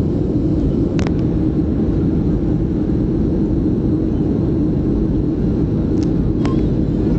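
Steady cabin noise of a Boeing 737-300 in flight, the drone of its CFM56-3 engines and rushing air heard from a seat over the wing, with a few faint clicks.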